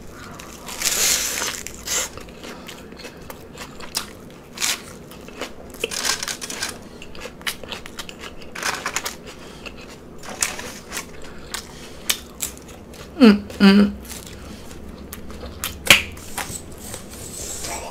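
Loud, close-miked chewing and crunching of food, with irregular wet crunches and smacks. Two brief hummed sounds from the eater come a little past the middle.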